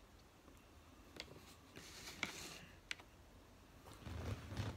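Fingers picking through a seafood boil of crab legs, shrimp and green beans in a glass bowl: a few faint separate clicks and a soft rustle, with a low bump near the end.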